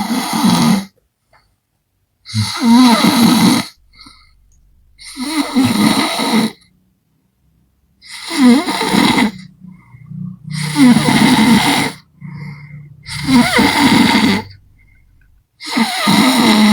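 A sleeping man snoring loudly, about seven snores in a steady rhythm of one every two and a half seconds or so. Each snore is a harsh, rattling breath lasting a little over a second.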